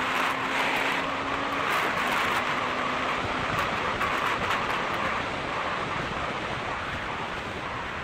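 Motorcycle travelling fast, heard as a steady rush of wind and road noise on a camera mounted on the bike, with a faint steady tone in the first few seconds. The rush eases slightly near the end.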